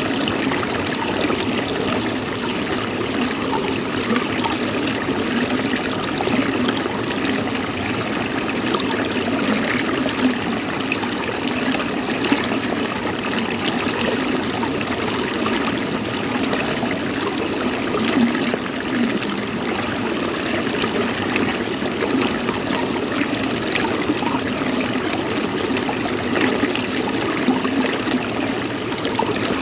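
Running water trickling steadily, with no pauses or changes.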